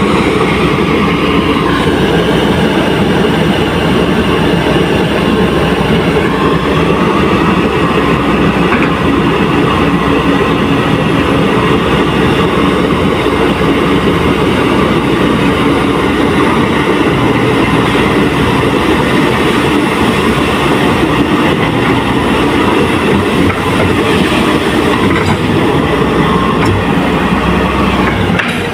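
Excavator's diesel engine running loudly and steadily while the machine is being worked.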